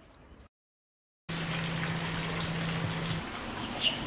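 The tail of soft guitar music fades out, followed by a brief silence. About a second in, a steady outdoor hiss starts, with a low hum under it that stops about three seconds in. A short bird chirp comes near the end.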